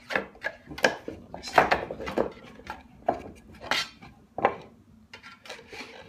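Irregular sharp knocks and clinks, about eight of them and fainter near the end, as a dovetail saw is worked into a plywood saw vise: the saw's steel plate and brass back knocking against the wooden jaws.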